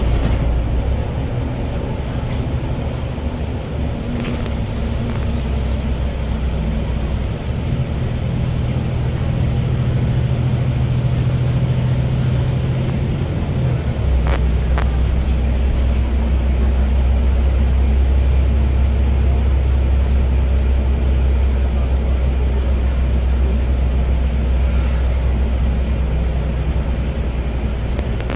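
Bus engine and road noise heard from inside the moving bus, running steadily. About 14 seconds in, the engine note drops to a deeper hum.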